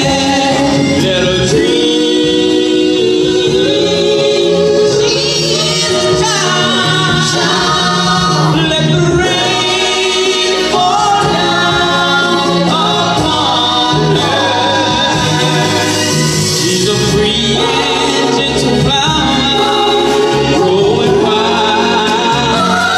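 Live gospel-style music: a group of singers in harmony, with vibrato on held notes, over a band.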